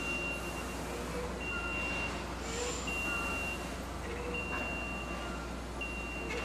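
Forklift reversing alarm beeping: a steady high tone in beeps of about half a second to a second, unevenly spaced, as the forklift backs up. A low steady hum runs underneath.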